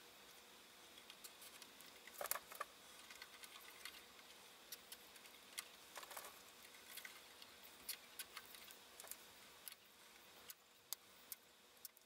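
Faint scattered clicks and rustling of hands handling wiring and plastic wire ties inside a metal amplifier chassis, with a couple of louder clusters of clicks about two and six seconds in.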